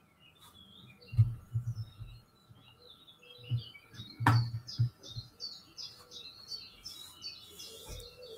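Small birds chirping and twittering, busiest in the second half. A few dull thumps and knocks come close by, the loudest a sharp knock about four seconds in.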